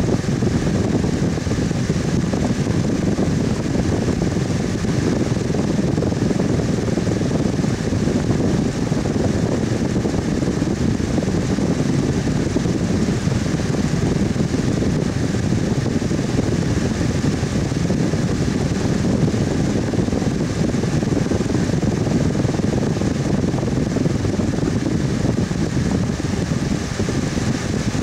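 Electric fan running steadily, a constant whooshing hum with a deep rumble.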